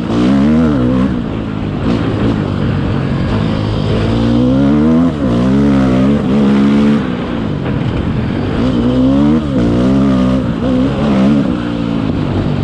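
KTM 450 EXC-F dirt bike's single-cylinder four-stroke engine being ridden hard off-road. The revs climb and drop over and over as the throttle is worked and gears change.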